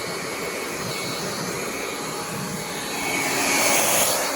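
Hot-air blower running steadily, drying freshly sprayed paint on small car parts; its rushing air swells near the end.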